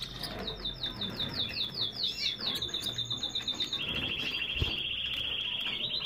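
Domestic canary singing: a run of quick down-slurred notes, then long, fast, even trills that drop in pitch about four seconds in and rise again near the end.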